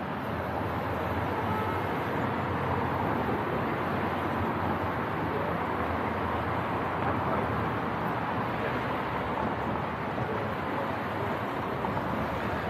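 Engine of a vintage open-top double-decker bus running steadily as the bus drives slowly past, with a low hum under it.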